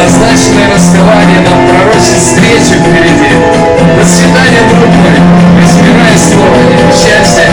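A man singing into a handheld microphone over a backing track, both played loud through a speaker.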